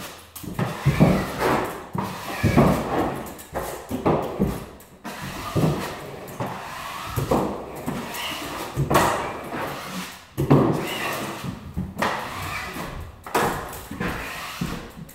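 Six-inch drywall mud box on a pole handle being pressed and dragged over screw heads on drywall, spotting them with joint compound. Each pass makes a knock and a scrape, about one a second. A taping knife scrapes compound on the wall at the same time.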